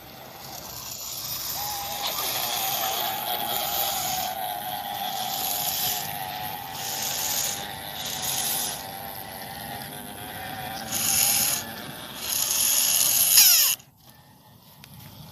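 Small electric motor of a radio-controlled construction model whining steadily under load, with bursts of scraping hiss on and off. Near the end its pitch rises briefly before it cuts off suddenly.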